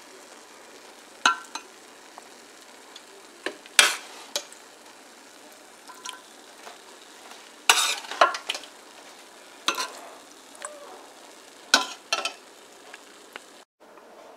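Thick chicken gravy being spooned out of an aluminium pot, with wet scooping and stirring sounds and sharp clinks of the spoon against the metal, about seven spread through the stretch.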